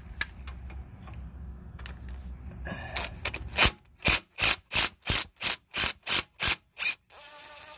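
A hand ratchet clicking in about ten quick bursts, roughly three a second, as it backs out the 12 mm bolt holding a front ABS wheel-speed sensor. The bursts start about three and a half seconds in, after a stretch of low steady hum.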